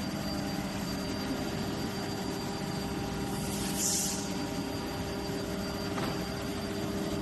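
Steady hum of plastic injection molding machinery running, with a short hiss about four seconds in.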